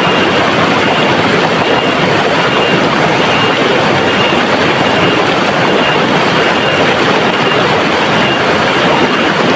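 River water rushing steadily, a dense even flow with no let-up. A faint high chirp repeats regularly through it, about once every 0.7 seconds.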